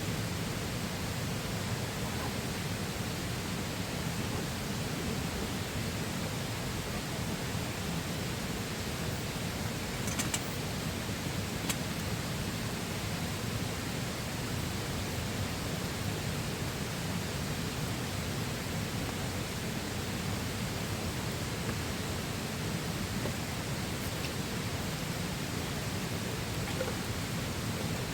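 Steady rushing of a flowing river, with a couple of faint sharp clicks about a third of the way through.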